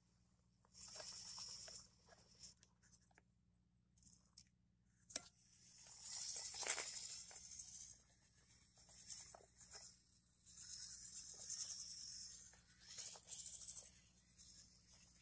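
RC rock crawler's electric motor and gears running in short throttle bursts, each about a second of high-pitched whirring hiss, with clicks and scrapes of the tyres scrabbling on rock in between.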